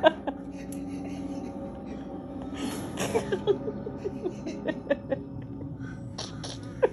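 Soft background music with faint, scattered voice sounds and a brief hissy burst about three seconds in.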